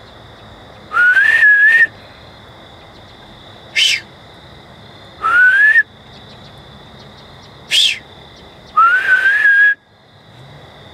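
A person whistling at a deer: three whistles, each sliding up and then held for about a second, with a short, sharp higher whistle between each pair.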